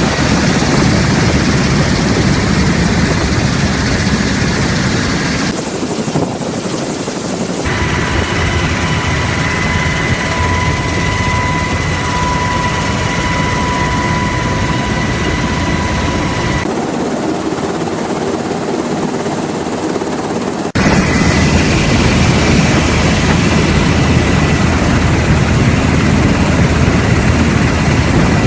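Black Hawk helicopter running close by, a loud steady rotor and turbine din. The sound changes abruptly several times as the footage cuts. A steady high whine sits over it in the middle stretch.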